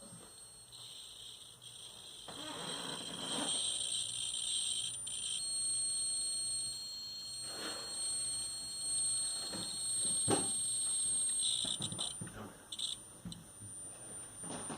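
Freezer making odd high-pitched whining tones after a power blackout; the pitch shifts now and then, with a few faint knocks in between.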